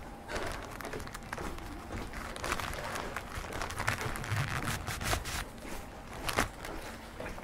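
Footsteps on a street, with irregular knocks and clatter over steady street noise.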